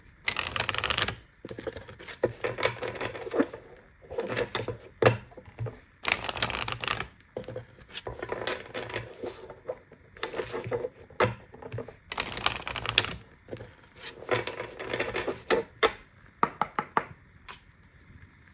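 Deck of oracle cards being shuffled by hand in repeated strokes, each a second or so of rapid clicking flutter, coming every one to two seconds.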